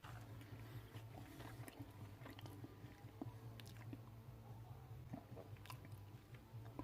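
Faint scattered clicks and small crunching handling noises from working on a servo lead's wires and JST connectors, over a low steady hum.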